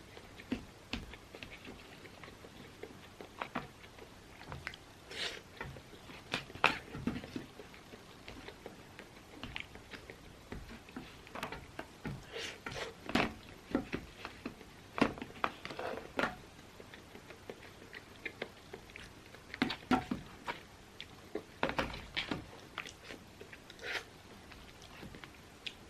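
Close-miked eating: a person biting and chewing food, with irregular moist clicks and crunches.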